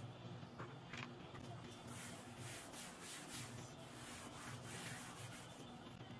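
A white cloth wiped back and forth over the case's black textured panel by a gloved hand: a quick run of rubbing strokes, about three a second, through the middle few seconds, over a faint steady low hum.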